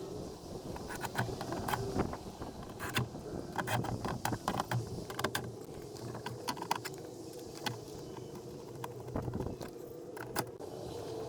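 Irregular clicks and light metallic jingling from hands and tools working in a car door with its trim panel off.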